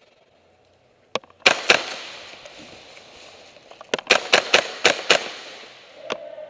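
Airsoft gunfire: two sharp cracks about a second and a half in, then a quick string of about six shots and a last one near the end, each echoing in a large warehouse.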